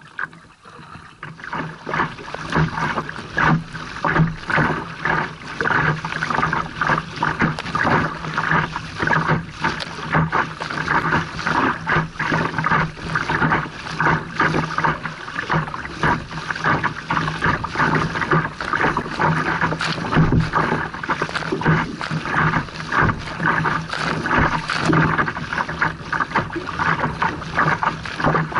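Choppy river water splashing and slapping against a kayak's bow in irregular surges, with wind buffeting the microphone.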